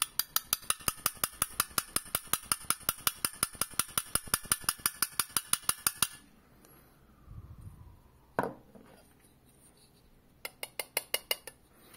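Rapid, even tapping on an emptied plastic shotgun shell hull held over a plastic cup, about six taps a second for some six seconds, knocking the last of the gunpowder out onto a digital scale. A single knock comes about eight seconds in, then a shorter run of taps near the end.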